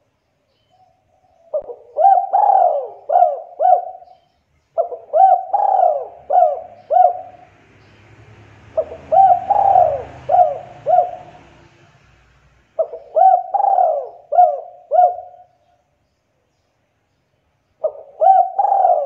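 Spotted dove cooing: four full phrases a few seconds apart and the start of a fifth near the end, each phrase a quick run of about five short coos with the second coo the loudest.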